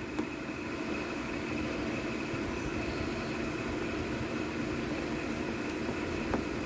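A steady low mechanical hum, with a single sharp click near the end.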